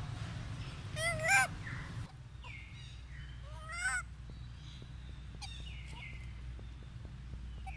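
Short honk-like animal calls, each rising then falling in pitch: two close together about a second in and another near four seconds in, with fainter high cries gliding downward between them.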